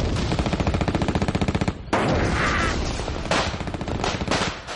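Battle gunfire: a long rapid burst of machine-gun fire lasting nearly two seconds, then after a brief break scattered shots and bangs.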